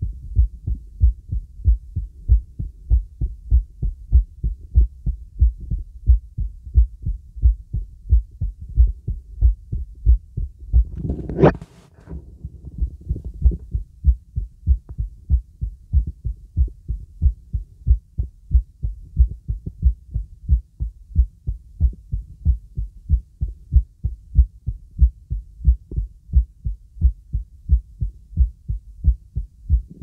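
Heartbeat heard through the bell of an acoustic stethoscope: steady, regular low lub-dub thumps. About 11 seconds in, a brief scraping rustle.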